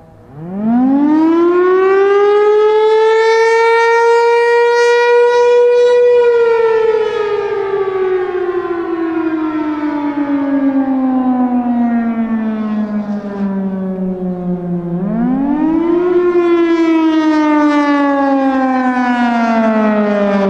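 Federal Signal Thunderbolt 1000 supercharged rotating warning siren winding up from a low pitch to a high, held tone over about six seconds, then sliding slowly down for eight seconds. About fifteen seconds in it winds up again briefly and falls once more. This rising-and-falling wail is the Attack signal of a siren test.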